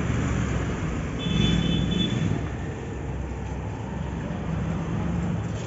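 Steady vehicle and traffic noise with a low engine hum, and a brief high-pitched tone about a second in.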